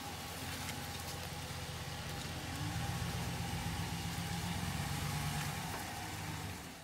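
Stock 2017 Ram 1500 Rebel's 5.7-litre Hemi V8 running with a steady engine note as the truck drives past. The note gets a little louder about two and a half seconds in and fades away near the end as the truck pulls off.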